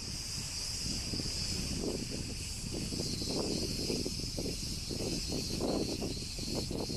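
Steady high-pitched buzzing of cicadas in the trees, with footsteps crunching on a gravel road about twice a second.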